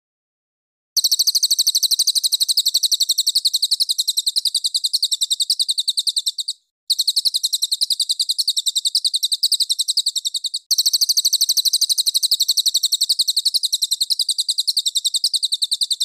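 Recorded songbird call: a rapid, high-pitched run of identical notes repeated steadily, starting about a second in and broken twice by brief cuts. It is a looped 'tembakan' master track of the kind played to tutor caged songbirds such as magpie-robins.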